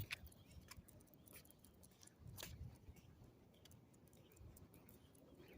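Near silence, with a few faint, irregular light clicks and ticks.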